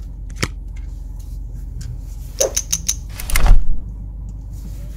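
Kia car's engine running, heard as a steady low hum inside the cabin, with a few sharp clicks, a quick run of them about two and a half seconds in, and a short louder noise just after.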